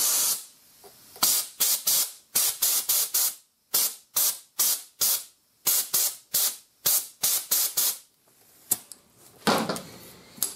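Gravity-feed media sand blaster fired at rust pits in a truck's wheel-arch steel, giving a rapid string of short hissing blasts of air and abrasive, about three a second, after one longer opening blast. The blasting stops about eight seconds in.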